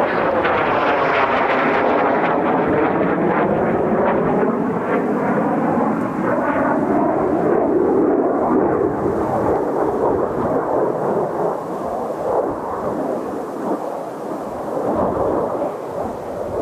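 Kawasaki T-4 jet trainers flying past, the turbofan noise loud with a sweeping, falling phasing effect over the first several seconds as they pass, then settling into a steady, rough rumble.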